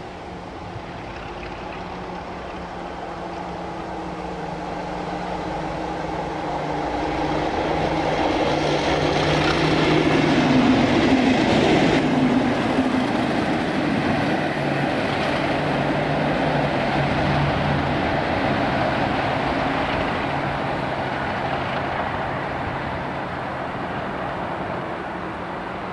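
A pair of Class 37 diesel locomotives, with English Electric V12 engines, running together. They come closer and louder, pass about ten to twelve seconds in as the engine note drops in pitch, then draw away and fade slowly.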